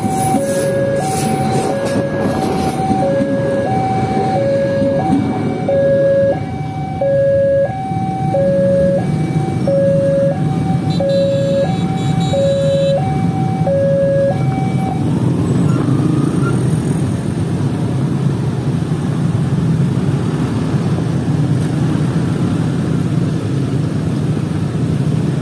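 Railway level-crossing alarm sounding a repeating two-tone high-low chime, about one pair a second, that stops about 15 seconds in. A steady low engine rumble runs underneath and grows louder from about 8 seconds in.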